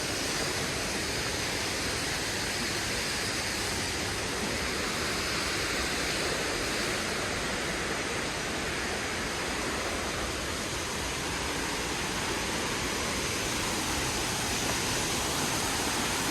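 Steady rush of a waterfall pouring into its plunge pool.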